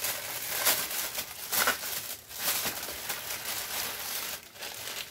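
Clear plastic packing bag crinkling and rustling as it is handled and pulled from the box, with louder crackles about a second in and again a little later.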